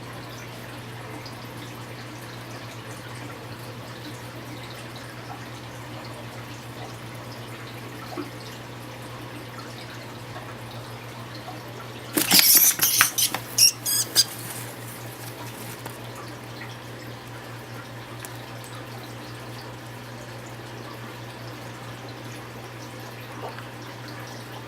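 A steady low hum, with a burst of crackling and rustling clicks about halfway through and a couple of faint single clicks.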